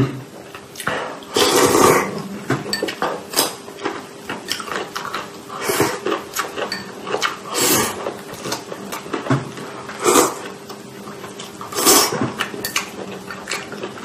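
Close-up eating: chopsticks clicking and scraping against a ceramic rice bowl as rice is pushed into the mouth, with wet chewing and lip-smacking. Several louder scraping, slurping bursts stand out among the small clicks.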